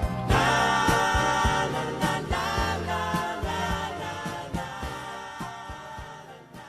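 Background song with a steady beat and held chords, fading out steadily toward the end.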